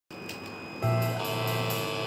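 Electric guitar played clean through a small Orange practice amp. A note is struck just under a second in, then more notes come in and ring on.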